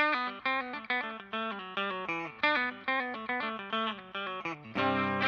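Electric guitar through Seymour Duncan Retrospec'd Antiquity pickups, with the neck and bridge pickups swapped between positions: a quick single-note lick at about four or five notes a second, then a strummed chord ringing near the end.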